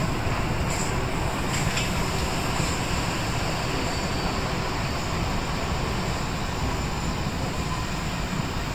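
Historic steam train running: a steady rumble of the train, with a few short sharp sounds in the first three seconds.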